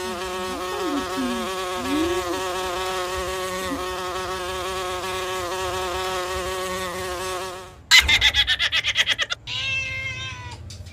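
An insect buzzing steadily for about eight seconds, then stopping abruptly. Then a quick run of loud clicks, about a dozen a second, and a cat meows once near the end.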